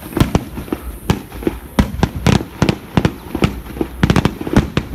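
Aerial fireworks display bursting: a rapid, irregular run of sharp bangs, several a second.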